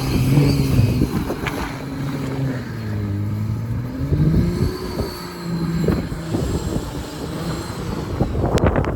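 BMW 335i's turbocharged straight-six engine running as the car drives through snow, its note dropping and then rising again midway as the throttle changes. A few sharp knocks come near the end.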